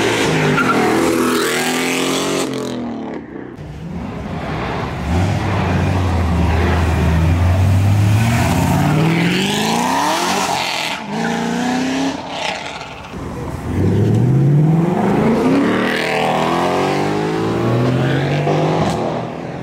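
Performance car engines accelerating hard, one pull after another, the engine note climbing in pitch several times over.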